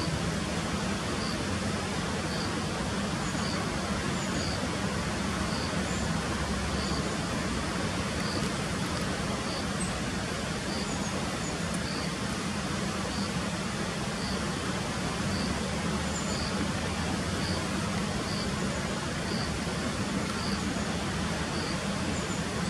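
Steady outdoor background noise with a low hum under it, and a faint high chirp repeating about once a second.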